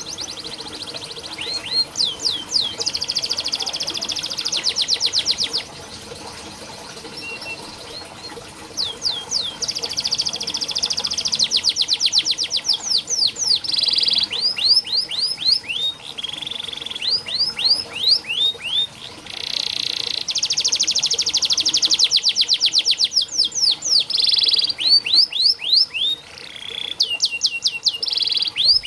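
Domestic canary singing: long phrases of very rapid rolling trills alternating with series of quick, repeated sweeping whistled notes, with brief pauses between phrases.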